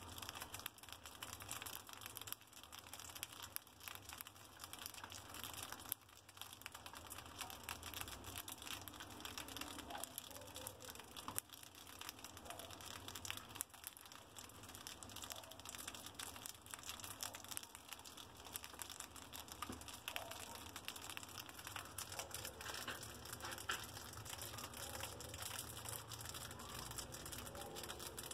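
A group of mice nibbling and crunching dry food pellets: a faint, continuous patter of tiny crunching clicks.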